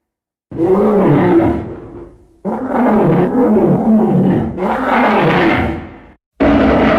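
Ghost Godzilla monster roar sound effect: a roar about half a second in that fades away, then a second, longer roar with a wavering pitch. A different steady sound cuts in just before the end.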